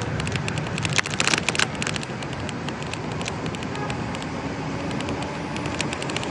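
Car driving, a steady road and engine noise with many small clicks and crackles on top, and a short burst of louder crackling about a second in.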